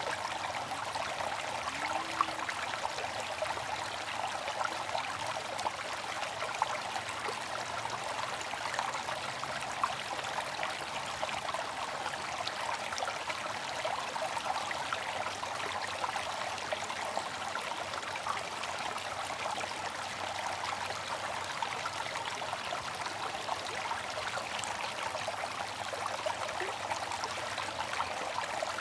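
Bamboo water fountain trickling steadily, with fine splashing throughout and a few slightly louder drips now and then.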